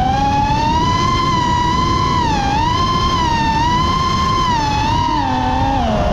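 Multirotor drone's motors and propellers whining, a high pitch that rises and falls smoothly as the throttle changes, over a steady low rush.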